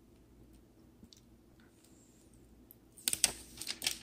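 Plastic protective film being picked at and peeled off a smartphone: a few faint fingernail clicks, then a crackling burst of crinkling plastic about three seconds in.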